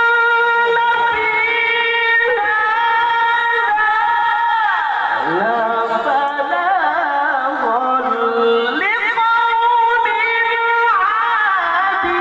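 A qari's melodic Qur'an recitation: one voice holding long high notes with wavering ornaments. The voice slides far down in pitch about five seconds in and climbs back up near nine seconds.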